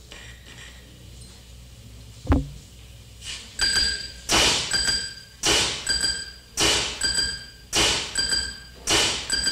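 Struck percussion in a live noise-music performance: a low hum, a single thud about two seconds in, then a bright ringing strike repeating about once a second. Each hit leaves several high tones ringing on.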